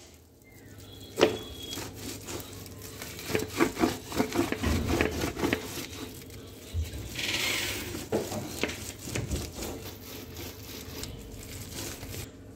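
Ripe palmyra palm fruit rubbed by hand against a woven basket to press out its pulp: uneven rubbing and crackling of the woven strips with scattered clicks, and a longer hissing scrape about seven seconds in.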